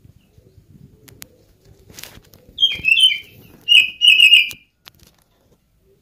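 Oriental magpie-robin (kacer) giving two short bursts of loud, cat-like calls in the middle, each under a second long, with a few faint clicks before them.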